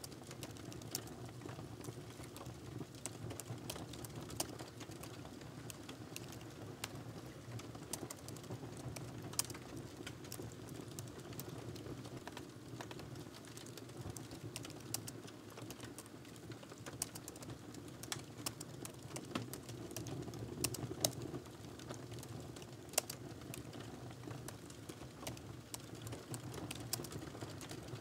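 Fingers typing on a laptop keyboard: irregular, quick key clicks with the odd louder keystroke, over a steady low background hum.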